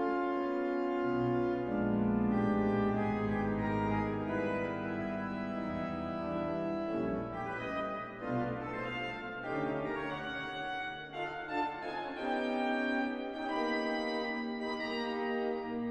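Organ music playing slow, held chords that change every second or two.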